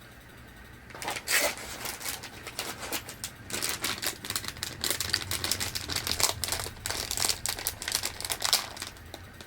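Snack packaging being crinkled and torn open by hand, starting about a second in as a run of dense crackling.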